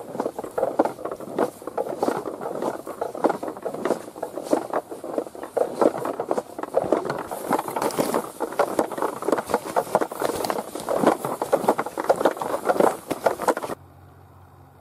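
Footsteps and rustling of someone walking through grass and brush, with clothing and gear brushing close to the microphone, in a dense, irregular crackle. It stops abruptly near the end.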